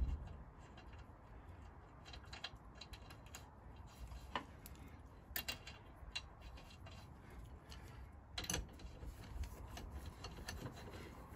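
Faint metallic clicks and ticks of wheel nuts being threaded onto a car wheel by hand, then a wheel brace put onto them. A few sharper clinks stand out, the clearest about eight and a half seconds in.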